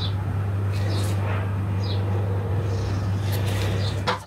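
Steady low hum that cuts off suddenly about four seconds in, with short bird chirps over it.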